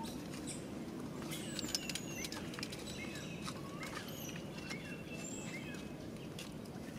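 Outdoor forest ambience: a steady low background noise with faint, short high chirps and scattered small clicks, thickest between about one and a half and five seconds in.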